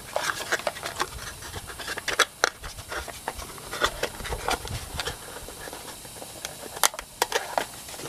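Scattered, irregular small clicks and scratches of handling noise.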